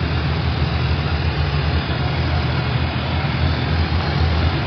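Steady low rumble and hiss of a vehicle driving, holding an even level throughout.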